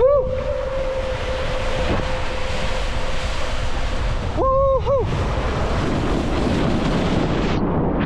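Water rushing and wind on the microphone as a rider slides head-first on a mat down a mat racing water slide. The rider gives one long held whoop at the start and two short whoops about halfway through.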